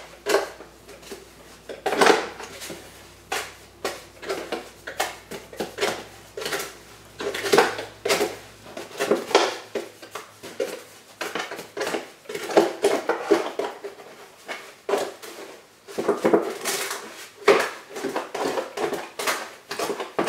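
Small trowel stirring and scraping wet mortar mix inside an old milk jug: an irregular run of scrapes and knocks, one or two a second, as the water is worked into the dry Quickrete.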